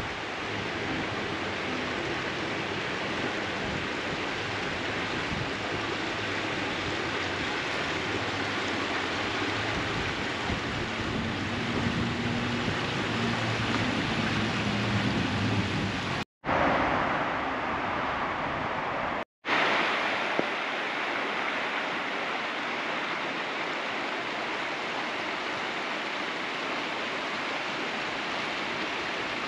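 A steady rushing noise, broken twice by short cuts to silence about sixteen and nineteen seconds in.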